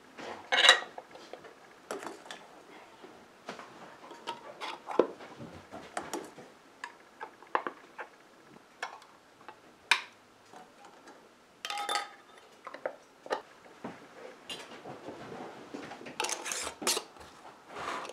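Glass canning jars and kitchen utensils clinking and knocking at an irregular pace, with one clink about two-thirds of the way through ringing briefly.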